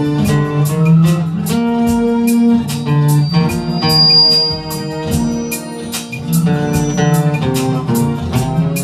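Instrumental break of a soul ballad: guitar playing over held chords, with a steady beat.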